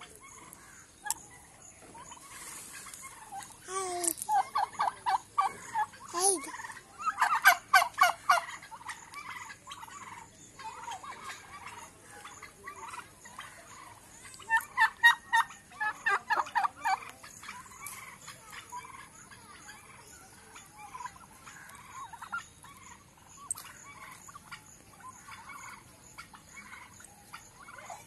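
Domestic turkey toms gobbling: loud rapid rattling gobbles about 4 s in, again around 7 s, and again about 15 s in, with quieter calls between.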